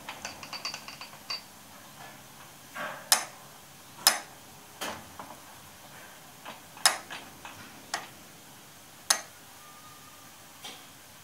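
Sharp metallic clinks, about six of them a second or so apart, as a lathe dog clamped on a bar in a four-jaw chuck is handled and the chuck is turned by hand. A quick run of light ringing ticks comes first.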